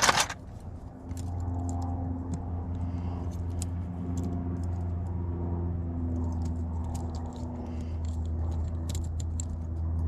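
Keys and small metal lock parts clinking once loudly, then scattered light clicks as a deadbolt is handled, over a steady low hum.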